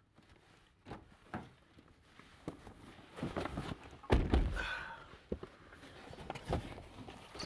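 Car doors and seats being handled as two people climb into the front of a car: scattered clicks and knocks, and a heavy door thud about four seconds in, followed by handling and rustling sounds.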